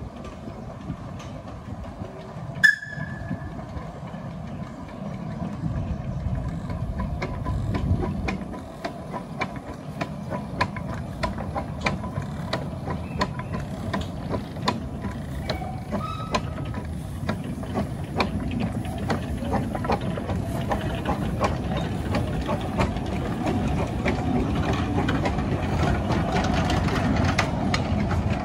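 Kerr Stuart Wren 0-4-0 saddle tank steam locomotive and its passenger coaches approaching and passing, with a low rumble and quick clicking of wheels on the track that grow louder as the train nears. A brief sharp sound stands out about three seconds in.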